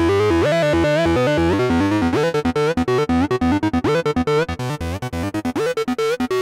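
Arturia MatrixBrute analog synthesizer playing a fast sequenced pattern of short notes over a bass line, with a few notes sliding up in pitch. The notes run smoothly for about the first two seconds, then turn short and choppy.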